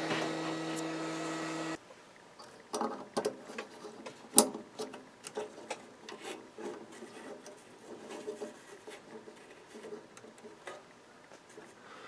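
Hands handling and routing the microwave oven's high-voltage transformer wires: irregular rubbing and rustling of the wires with light clicks and taps, and one sharp click about four seconds in. Before that, a steady hum cuts off suddenly about two seconds in.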